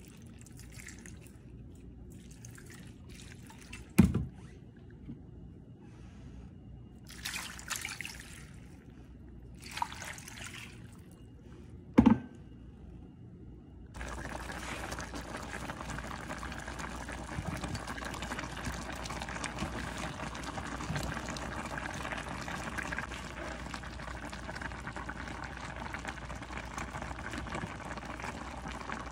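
Liquid poured from a measuring cup into a pan of fish and vegetables in several short pours, with two sharp knocks. About halfway through, it gives way to the steady bubbling of the fish paksiw broth simmering in the pan.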